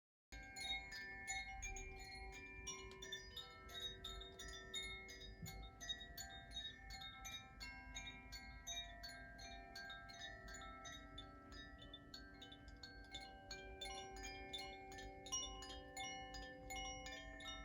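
Koshi chimes tinkling: many quick, irregular strikes of the tuned chime rods, their tones ringing on and overlapping. The chiming starts abruptly just after the start.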